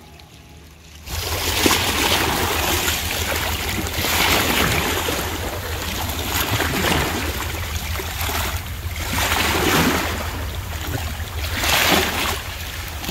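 Small sea waves lapping and splashing against seaweed-covered shore rocks, starting about a second in and swelling and easing every couple of seconds, with a low wind rumble on the microphone.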